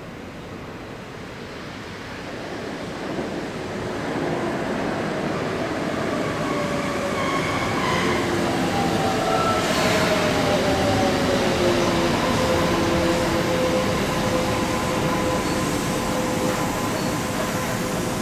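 Electric train running on the line: wheel-and-rail rumble that grows louder over the first few seconds and then holds, with motor whines that slide down in pitch in the middle and one that settles to a steady tone.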